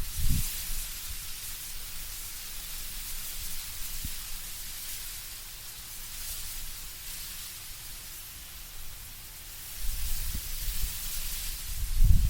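Wind blowing through autumn trees, the leaves rustling in a steady hiss that swells and eases with the gusts. A low rumble comes in briefly at the start and again about ten seconds in as a stronger gust arrives.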